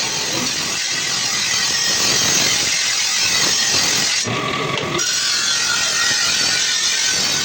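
Steady harsh abrasive rasping of a steel blade being sharpened, with a short dip about four seconds in.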